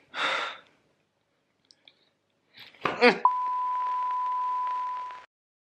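Television 'please stand by' sound effect: a short warbling electronic glitch, then a steady test-tone beep over faint static hiss, held for about two seconds before it cuts off.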